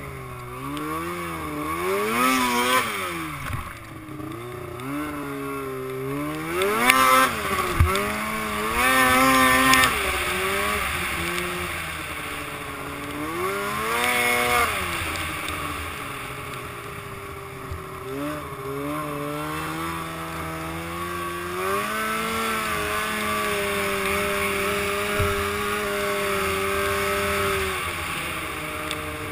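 Arctic Cat M7 snowmobile's two-stroke engine revving up and down in repeated surges, with the biggest bursts about seven to ten seconds in, then holding a steadier pitch in the second half and easing off near the end, over a hiss of snow and wind.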